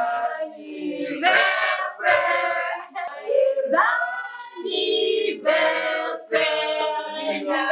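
Voices singing, mostly women's, in phrases of held and gliding notes with little or no accompaniment.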